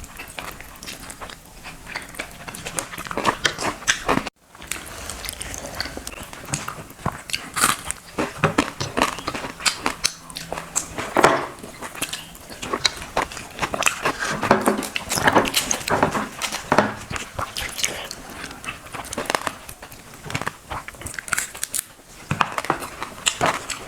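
Close-miked eating sounds: a person chewing and biting fried fish with watered rice, with irregular crunches, mouth clicks and smacks. The sound cuts out briefly about four seconds in.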